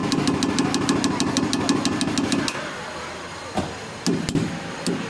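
A motor-driven mechanical tool or machine runs with a rapid, even ticking for about two and a half seconds, stops, then runs in two short bursts near the end.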